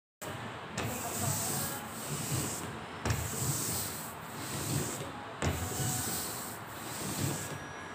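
A hand printmaking roller rolled back and forth over paper laid on an inked woodblock: a steady rubbing, rolling noise that swells with each stroke, pressing the print.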